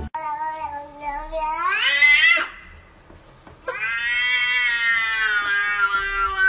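Domestic cat meowing: two long, drawn-out meows. The first rises in pitch near its end. The second starts about halfway through and is held steadily for about three seconds.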